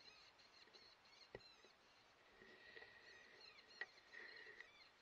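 Near silence with faint high squeaks: short curved chirps that cluster over the last two seconds, with soft clicks about a second in and near the end.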